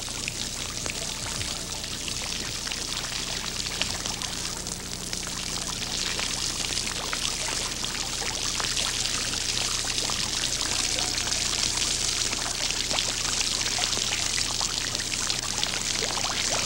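Rain falling steadily on puddles and wet ground: a dense hiss of many small drop ticks that grows gradually louder.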